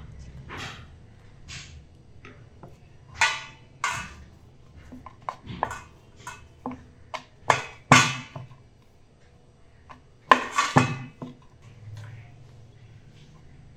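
Scattered clinks, knocks and short scrapes of dough being handled and rolled out on a wooden rolling board, irregular and coming in small clusters, the loudest about three seconds in, around eight seconds and near eleven seconds.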